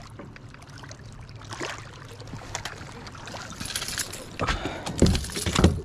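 Water splashing and sloshing beside a kayak as a hooked bass is brought alongside, with a few heavy bumps near the end.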